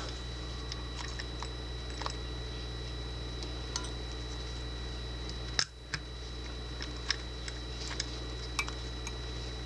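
Scattered light metallic clicks and taps from a lock cylinder and a thin homemade can-metal shim being handled, with one sharper click about halfway through, over a steady low hum.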